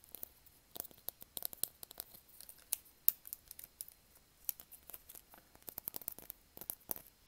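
Blue plastic glasses being handled close to the microphone: a quick, irregular run of small sharp plastic clicks, taps and scratches.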